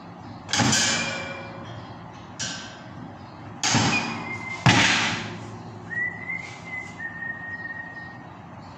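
Bolt cutters snapping through the steel bars of a round grill grating: three loud sharp snaps and a lighter one, some followed by a thin high metallic ring from the grating.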